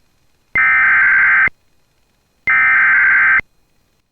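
Emergency Alert System SAME header data bursts: two harsh, buzzy digital tone bursts of about a second each, one second apart. They are the second and third of the three header bursts that encode the alert ahead of a severe thunderstorm warning message.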